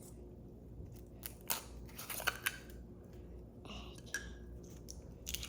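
Hands squeezing and kneading soft, glittery slime: scattered sticky clicks and crackles at irregular intervals.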